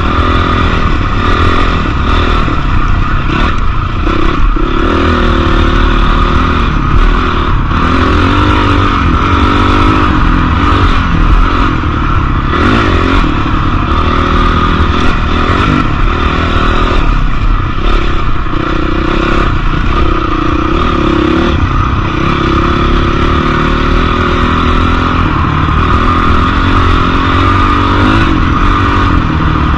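Motorcycle engine running while ridden on a dirt trail, its pitch rising and falling repeatedly over a constant heavy low rumble.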